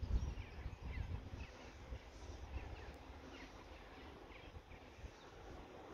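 Wind rumbling on the microphone in uneven gusts, strongest in the first second, with faint short bird chirps scattered through.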